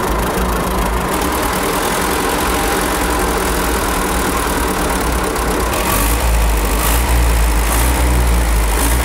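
Rebuilt Morris Armoured Car engine running on a workshop test stand, steady and a little louder from about six seconds in.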